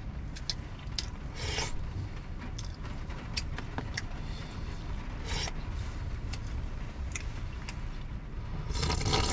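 A metal spoon scraping and clicking against a plastic food tub with sounds of eating, a dozen or so sharp clicks and a few short noisy bursts, over a steady low rumble.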